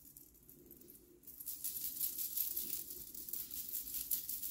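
Shell beads on the hem fringe of a beaded linen-blend mini skirt clicking and jingling against each other as the wearer sways and turns. The rattle is faint at first and becomes a fast, continuous jingle from about a second in.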